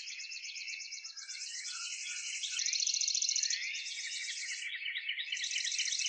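Dense chorus of small songbirds chirping and trilling, many calls overlapping with high, rapid trills. About two and a half seconds in, a faint click marks an abrupt change in the high trilling.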